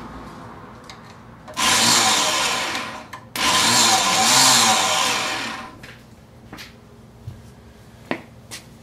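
Kawasaki Mule 500's electric starter motor whirring in two bursts as the starter relay is bridged, the first about a second and a half long and the second about two and a half, each spinning up and winding down. It spins freely without turning the engine over, a failure the owner believes lies in the clutch inside the starter.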